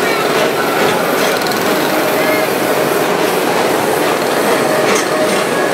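Tomorrowland Transit Authority PeopleMover train running along its elevated track, heard from on board: a steady rattling rumble.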